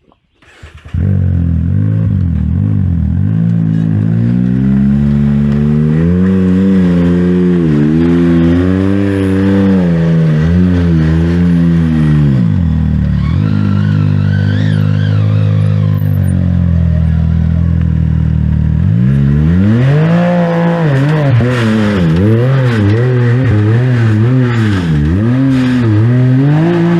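Side-by-side UTV engine starting abruptly about a second in and revved up and down in repeated throttle blips while crawling up a steep rocky climb, holding a steadier pitch for several seconds midway before the quick rises and falls resume.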